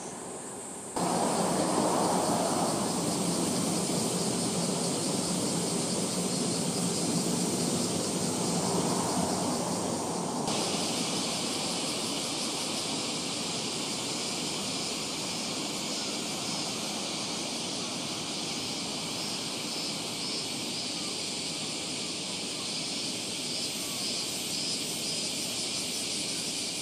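Outdoor city ambience: a steady low hum of distant traffic. About ten seconds in, the sound changes abruptly and a steady, high-pitched drone of cicadas takes over, with faint pulsing in it near the end.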